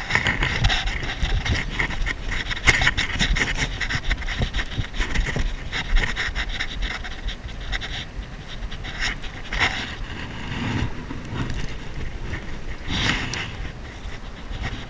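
A person breathing heavily close to the microphone, a long noisy breath swelling every few seconds.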